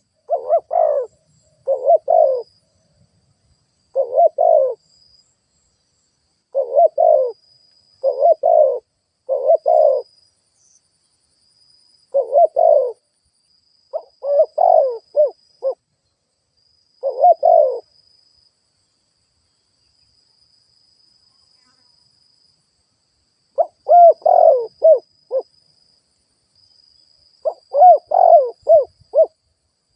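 Spotted dove cooing: short phrases of two or three notes repeated every second or two, then a gap of several seconds, and a quicker run of notes near the end. These are the excited 'boi' calls of a decoy dove, used to provoke and lure wild doves.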